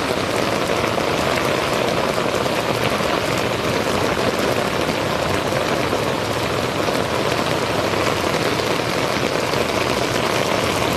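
Rain falling steadily, a dense, even hiss of drops striking the wet ground.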